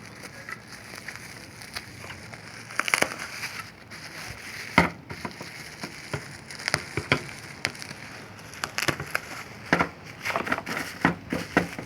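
Handling a small tail light and its packaging: rustling with scattered clicks and taps, the sharpest knock about five seconds in.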